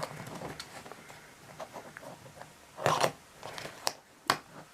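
A small plastic puzzle cube being handled and set onto a plastic cube stand: light clicks and rustles, a louder clatter about three seconds in, and two sharp clicks near the end.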